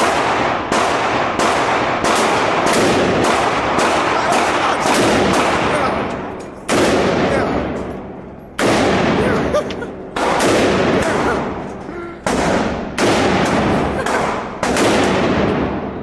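Gunshots fired in a rapid, uneven string, about twenty in all, mostly half a second to a second apart with a longer pause around the middle; each shot rings out in a long echoing decay.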